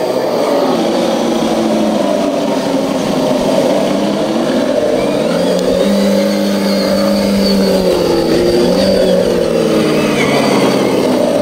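Quarter-scale RC4WD Killer Krawler 2 crawler driving, its twin DeWalt 18 V brushed motors and gear drive whining steadily, the pitch rising and falling with the throttle.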